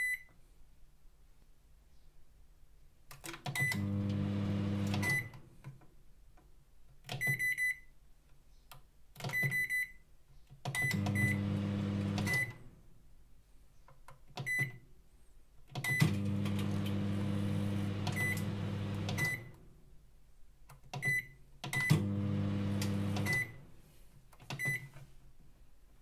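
Microwave oven beeping again and again, each beep a short high tone, with clicks and repeated runs of the oven's low hum starting and stopping. The hum lasts from under a second to about three seconds each time, and beeps mark each start and stop.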